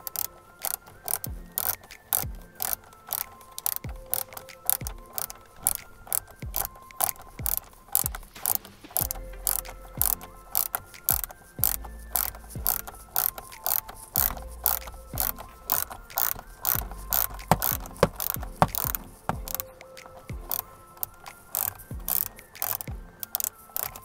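Small hand ratchet clicking as it is swung back and forth, about three clicks a second in runs, tightening the screws at the back of the steering wheel.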